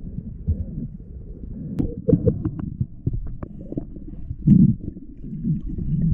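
Underwater noise picked up by an action camera in its waterproof housing: a muffled low rumble with scattered clicks and knocks, and a louder low burst about four and a half seconds in.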